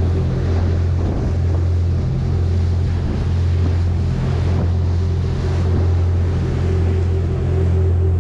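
Boat engine running steadily under way, a constant low hum, over the rushing wash of the wake along the hull, with wind on the microphone.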